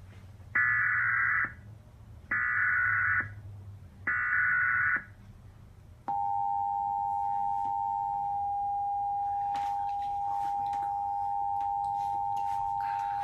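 Emergency Alert System test signal: three short bursts of SAME digital header data, each about a second long with about a second between them, then the steady two-tone EAS attention signal (853 and 960 Hz) begins about six seconds in and holds.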